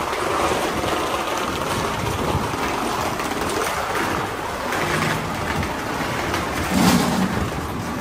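Steady din of city traffic, with a brief louder rumble about seven seconds in.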